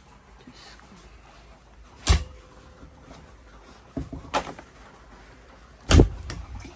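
Closet doors being pushed shut: a sharp knock about two seconds in, two more around four seconds in, and the loudest bang about six seconds in.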